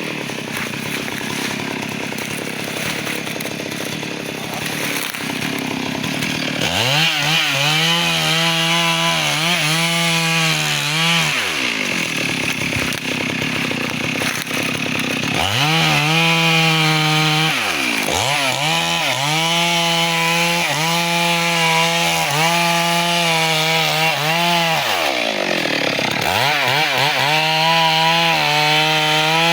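Two-stroke chainsaw cutting teak. It runs unevenly at first, then about six seconds in it is held at a high, wavering full throttle. The revs drop and climb back three times.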